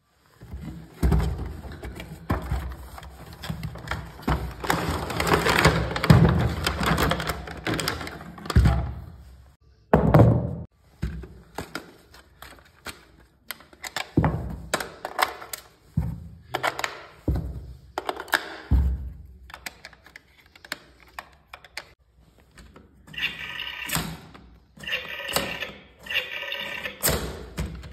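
Handling of a plastic toy dial telephone and its packaging: rustling for the first several seconds, then a run of separate knocks, taps and thunks of hard plastic as the battery compartment is worked. About 23 seconds in, the battery-powered toy starts making short bursts of electronic tones.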